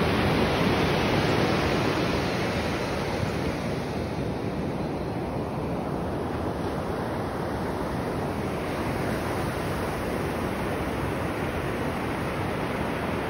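Surf washing up a sandy beach, a steady rush of breaking waves that is a little louder in the first couple of seconds.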